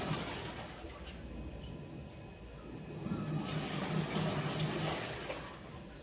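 Panasonic NA-FD85X1 top-load inverter washing machine agitating a soapy load: water churning and sloshing over a low motor hum. It comes in surges, loud at first and fading after about a second, swelling again about three seconds in and easing near the end, as the wash action starts and stops in turns.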